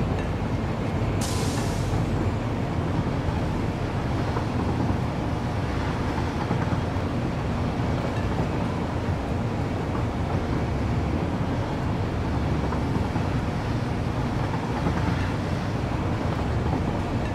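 Steady low rumble of a moving vehicle, with a short hiss about a second in.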